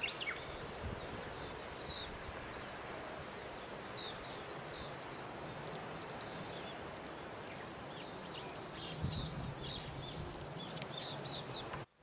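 Outdoor ambience of small birds chirping again and again over a steady background hiss, with a few faint clicks. The sound cuts out briefly just before the end.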